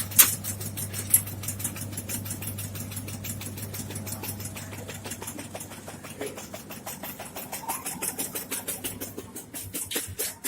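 Automatic tobacco-shredding machine running, its cutter chopping leaf in a fast, even run of clicks over a steady motor hum; the hum stops about nine seconds in.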